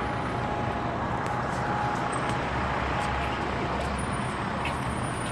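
Steady road traffic noise from vehicles passing on a nearby street, an even wash of sound with no distinct events.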